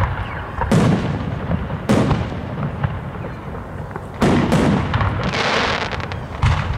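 Aerial firework shells bursting overhead: several loud booms a second or two apart, each trailing off, with a spell of crackle in between.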